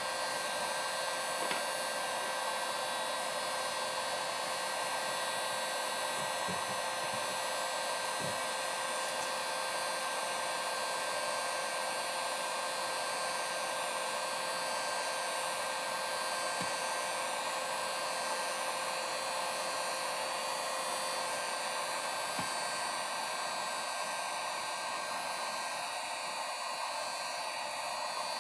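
Heat gun running steadily on its low setting, a constant blower hiss with a thin motor whine, heating the chainsaw crankcase so the frozen crankshaft's bearing will slide in. A few faint taps sound under it.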